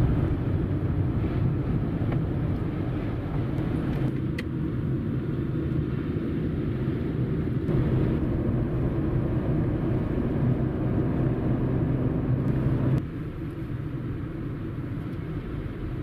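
Car cabin noise while driving: a steady low rumble of engine and tyres on the road, which drops a little in level about thirteen seconds in.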